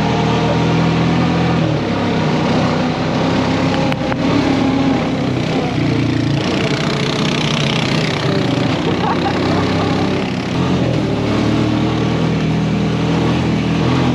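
Side-by-side buggy's engine running on the move, heard from on board, its pitch rising and falling with the throttle over a steady rush of wind and tyre noise.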